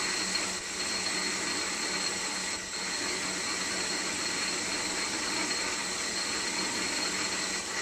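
Small metal lathe running steadily, with a hum and a high whine, while a 7/16-inch reamer is fed into a spinning brass bearing bush.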